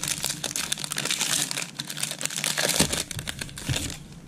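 Crinkling plastic wrapper of a trading-card pack being opened and handled: a dense, crackling rustle that dies down near the end.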